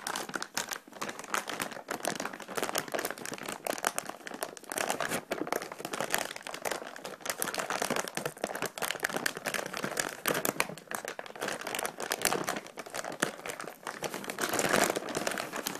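A graphics card's wrapper being undone by hand, crinkling and crackling continuously.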